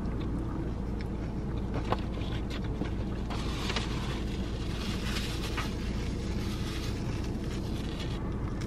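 Steady low hum of a parked car running, heard inside the cabin, under chewing on a sandwich. A napkin rustles around the middle.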